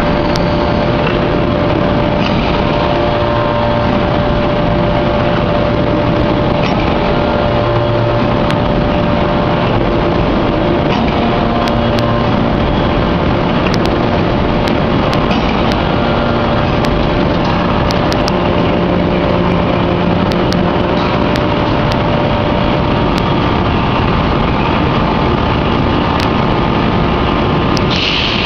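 Anyang open-die hydraulic forging press running while it works a red-hot forged ring: a loud, steady machinery noise with a steady hum that fades out about three-quarters of the way through, and a few faint clicks.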